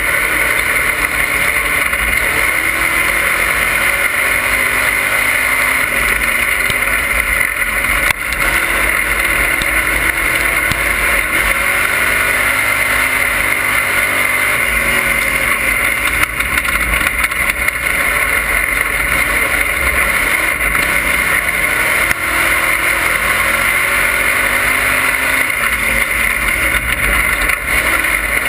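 Dirt-track race car's engine heard from inside the cockpit, loud and continuous, its pitch rising and falling again and again as the car runs laps, under a heavy hiss of wind and road noise.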